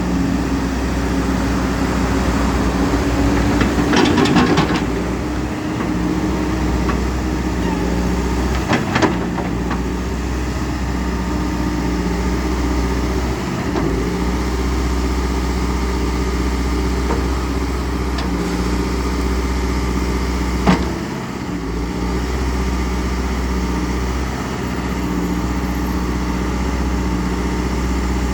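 Diesel engine of a CAT 420E backhoe loader running steadily at idle. It swells briefly about four seconds in, and a couple of sharp clanks come near nine and twenty-one seconds.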